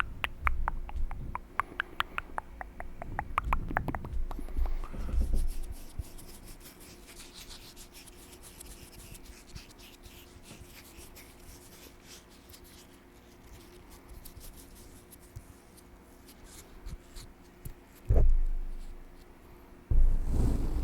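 Mouth sounds close to the microphone: a quick run of mouth clicks over the first few seconds, then faint scattered crackles and a single low thump near the end.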